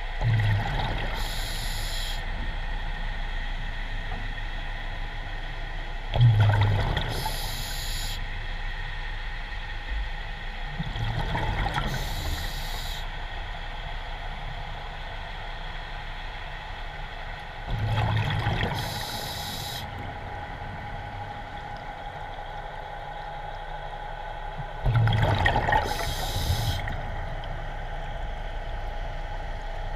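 Scuba diver breathing through a regulator underwater, one breath cycle about every six seconds: a low bubbling rumble and a hiss, over a steady hum.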